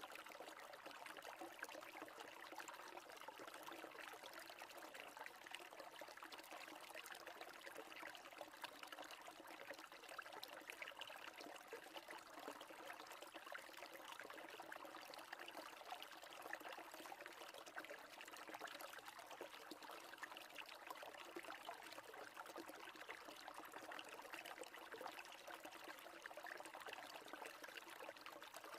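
Near silence with a faint, steady trickling-water sound, like a small stream running.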